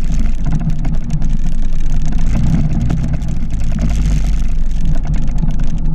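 Yamaha PW50's small two-stroke single-cylinder engine running at a steady, moderate speed while the bike rides across grass, heard close up from on the bike.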